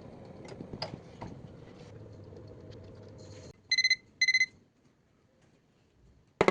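A cooking appliance hums steadily, cuts off a little past halfway, then beeps twice as its cooking cycle ends. A sharp click near the end.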